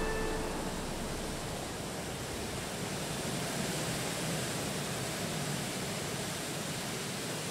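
Waterfall: a steady rush of falling water, even and unbroken, with the last held notes of music dying away in the first moment.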